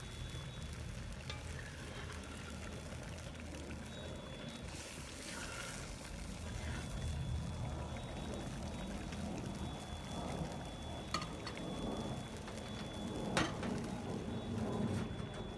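Spicy fish soup with tofu and duck blood bubbling at a boil in a cast-iron wok as it cooks down to thicken, stirred with a spatula. Two short sharp knocks come in the second half.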